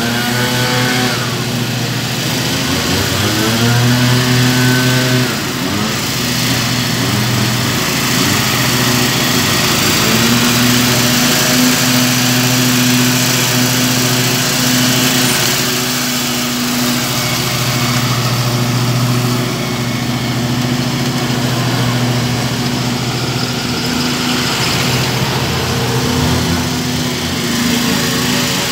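Wright Stander ZK stand-on mower's engine running steadily at mowing speed as the mower cuts grass, close by for much of the time. In the first few seconds a tone glides up and down in pitch over the drone.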